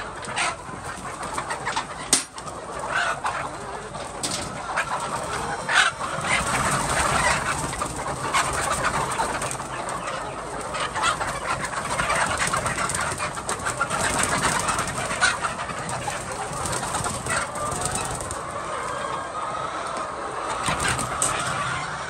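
A flock of chickens clucking together, a dense steady chatter of many overlapping calls, with a sharp knock about two seconds in.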